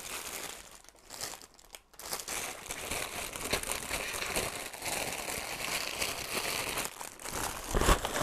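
A thin clear plastic produce bag crinkling as it is handled, in a short burst near the start and then steadily for several seconds. Near the end, a louder rustle of a brown paper bag being rummaged in.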